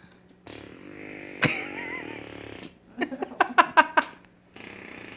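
A child making a long, buzzy fake fart sound lasting about two seconds. It is followed about three seconds in by four or five short, sharp pitched bursts.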